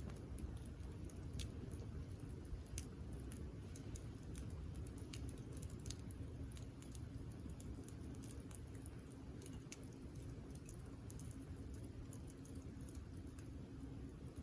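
Wood campfire burning, with irregular small crackles and pops over a steady low rumble of the flames.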